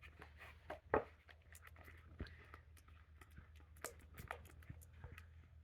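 Homemade glue-and-activator slime being mixed, a run of small irregular wet squishes and clicks with one louder smack about a second in; the slime is still sticky, not yet fully formed.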